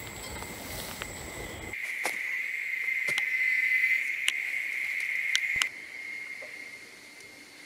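Steady high-pitched drone of forest insects calling, louder for a few seconds in the middle, with a few faint clicks.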